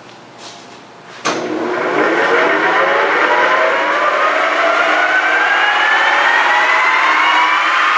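Tuda 19 x 80 engine lathe spindle starting in high gear with an empty chuck: a sharp click about a second in, then a whine that rises steadily as the geared headstock spins up toward its 1800 RPM top speed, still climbing near the end.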